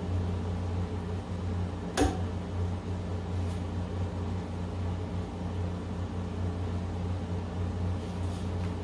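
A steady low machine hum, like a fan or air-conditioning unit running, with one sharp click about two seconds in.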